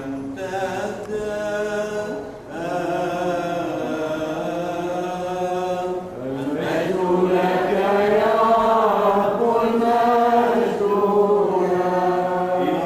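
Orthodox liturgical chanting: a voice chanting long held notes that step and glide in pitch over a steady low drone. About halfway through it grows fuller and louder.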